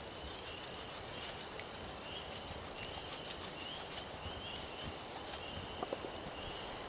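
A small animal chirping over and over, short high chirps about two a second, with scattered faint ticks.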